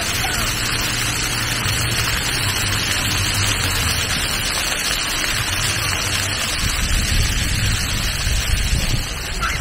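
Many jets of an illuminated floor fountain splashing water onto wet paving: a steady hiss of falling water, with a low rumble underneath.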